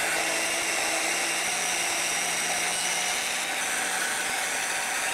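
12-volt electric oil extraction pump running steadily, pulling oil out of a small outboard's crankcase through a hose, much of the time sucking air because the engine holds little oil. The footage is played faster than normal.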